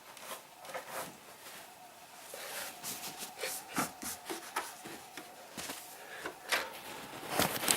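Irregular rubbing and scraping with scattered short clicks and knocks, like objects being handled in a small room.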